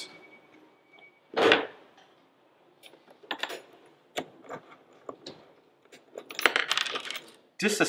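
Metal clinks and rattles of bolts and a wrench as the bolts are taken out of a plastic mag drive pump: one louder knock about a second and a half in, scattered sharp clicks, then a quick run of clicks and rattles near the end.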